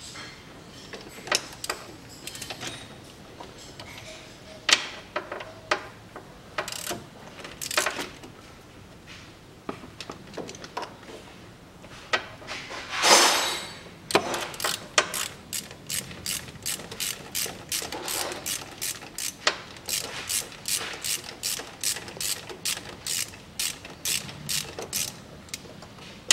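Ratchet wrench with a 10 mm socket loosening the bolts of a CVT heat exchanger: scattered clicks and knocks at first, then from about halfway an even run of ratchet clicks, about two to three a second. A brief rushing noise, the loudest sound, comes just before the clicking starts.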